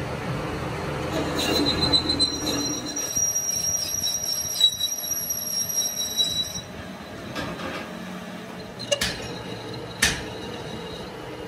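High-pitched steady squeal of a cutting tool on the steel axle as it is machined, stopping abruptly a little past halfway. Two sharp metallic knocks follow about a second apart near the end.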